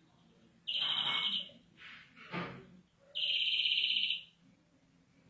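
Greenfinch giving two harsh, buzzing notes about a second each, with a short rougher note between them. The phrase is presented as a bad sound ('bok') that counts against the bird in greenfinch song judging.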